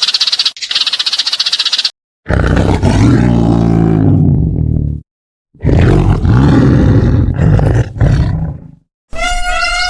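A rapid, high pulsing call that stops abruptly after about two seconds. Then two deep, drawn-out calls from a large animal, each about three seconds long, with a short silence between them. A higher, pitched call begins near the end.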